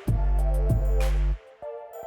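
Background electronic music with a heavy bass note that cuts off about one and a half seconds in, over steady synth tones and crash-like hits.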